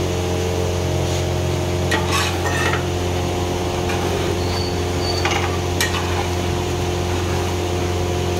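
Chicken masala being stirred in a large cooking pot, the ladle scraping and clinking against the metal a few times, around two and five seconds in. Under it runs a steady low hum.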